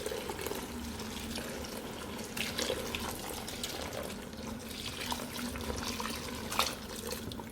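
Water pouring steadily into a pot of rice until it covers the grains, with a few light knocks.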